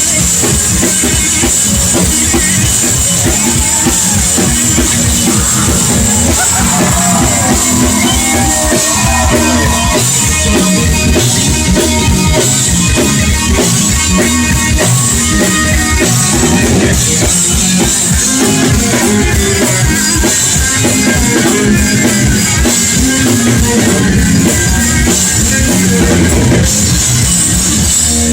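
Live blues-rock band playing loudly: electric guitar with bent notes over a busy drum kit.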